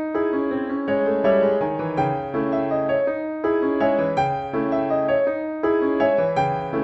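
Background music: a gentle piano or keyboard piece, with notes changing about every half second.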